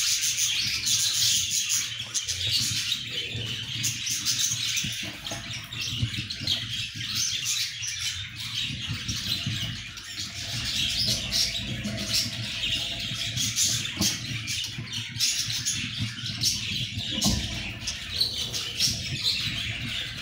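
Budgerigars chirping and chattering in a continuous stream of quick, scratchy chirps.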